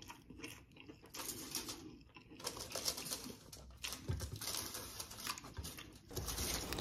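Aluminium foil food wrappers crinkling and crackling in irregular bursts as hands move food about on them.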